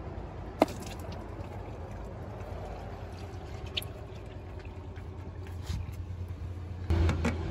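Used engine oil draining in a steady stream from a truck's sump drain hole into a plastic bucket, with a low hum underneath and a short click about half a second in.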